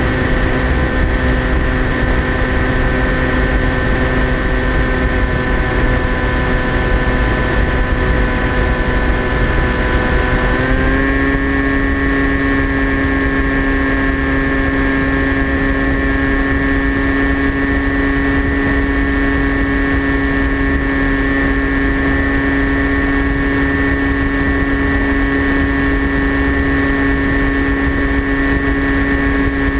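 Electric motor and propeller of a TBS Caipirinha flying wing, heard from its onboard camera, running with a steady drone over rushing wind. Its pitch steps up slightly about ten seconds in as the motor speeds up, then holds.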